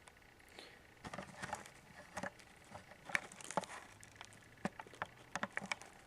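Scattered light clicks and taps from hands handling hard objects, about a dozen irregular knocks with quiet between them.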